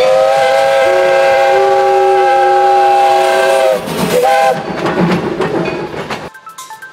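Steam locomotive whistle sounding one long chord blast of several notes, then a short toot. Music with plucked notes begins near the end.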